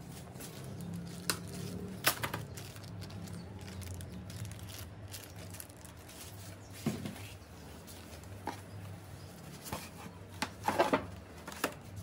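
Packaging being handled: polystyrene foam packing and bubble-wrapped plastic parts knock, click and crackle at irregular moments, loudest in a quick cluster near the end, over a low steady hum.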